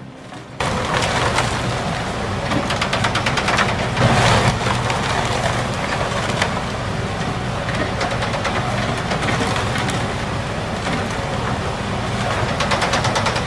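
Wood chipper chewing through wood: dense cracking and splintering over a steady machine drone, starting abruptly about half a second in.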